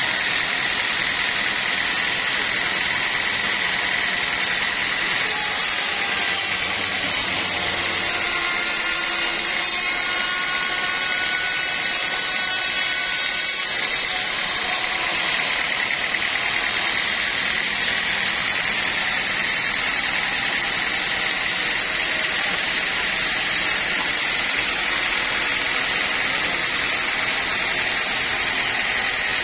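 Band sawmill running steadily, its blade cutting lengthwise through a teak log with a constant high whine over the hiss of the cut.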